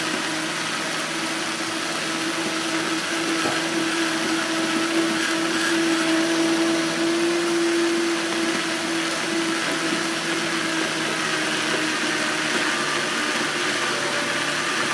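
High-powered countertop blender running steadily, churning a thick chocolate shake of milk, ice cream and ice while a tamper is pushed down through the lid to keep the mix moving. It gets a little louder in the middle and then settles.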